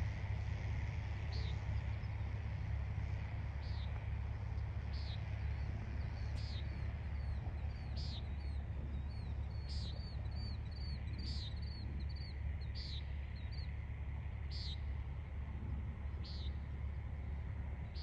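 Birds calling over a steady low rumble: one short, sharp call repeats every second or two, and in the middle a quick run of small high chirps joins in.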